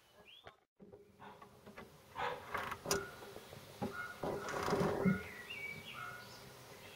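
Short metallic clicks and rattles from the twin SU carburettors' throttle and choke linkage being worked by hand, with birds chirping in the background.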